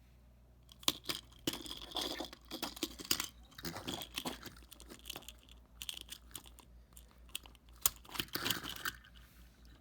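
Toy packaging being torn and crinkled open by hand: an irregular run of crackles, rustles and clicks that thins out near the end, over a faint steady low hum.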